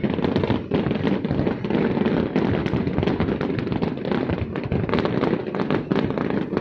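Fireworks display going off in a dense, continuous barrage of crackles and bangs.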